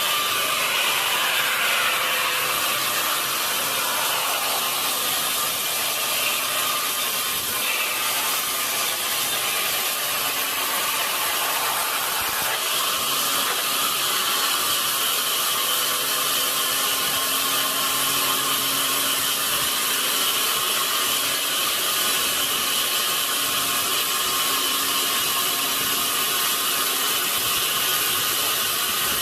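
Sawmill saw cutting through a large log, a continuous loud mechanical cutting noise. A whine falls in pitch over the first few seconds, and a steadier high whine sets in a little before halfway.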